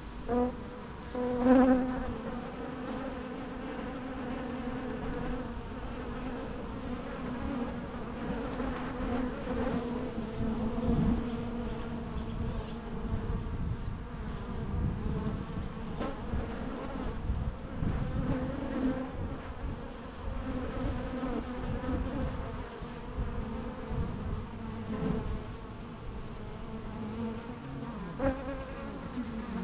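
Bees buzzing in a steady, wavering hum, with one bee buzzing louder close by about a second and a half in.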